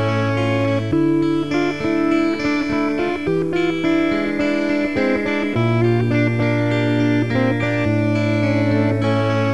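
Background music: an instrumental guitar passage over a held bass line that changes note every second or two.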